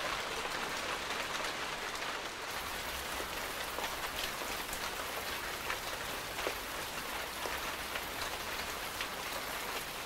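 Library sound effect of light rain falling on plants, played back: a steady hiss of rain with scattered sharp drop ticks.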